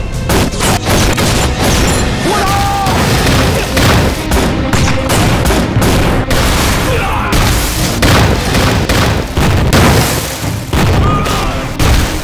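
Artillery battle: field guns firing and shells exploding in quick succession, blast after blast with no pause.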